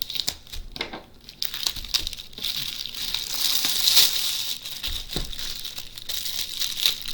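Parcel packaging crinkling and tearing as it is handled and opened: a busy crackle of small clicks, denser and louder from about two seconds in.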